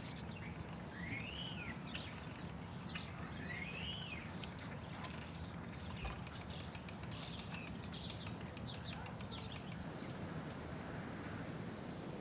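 Small birds chirping, with repeated rising-and-falling whistled notes, over a steady low background rumble; the bird calls stop about ten seconds in.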